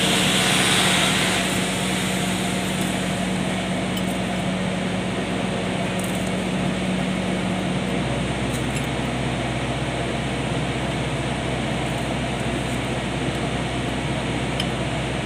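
A machine running with a steady hum that drops in pitch about eight seconds in, with a few faint metallic clinks.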